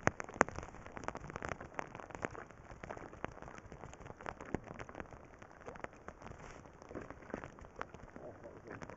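Shallow river water splashing and dripping around hands and wading legs: an irregular patter of small drops, with a couple of sharper splashes just after the start.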